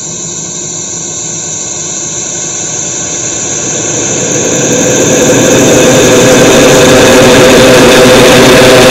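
Loud roaring noise like a jet engine, with a few steady tones under it, swelling steadily over about six seconds and then holding very loud.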